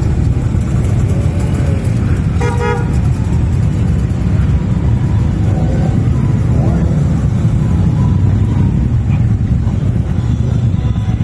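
A column of motorcycles, cruisers and touring bikes, riding past at low speed with a steady, deep engine rumble. A horn toots once, briefly, about two and a half seconds in.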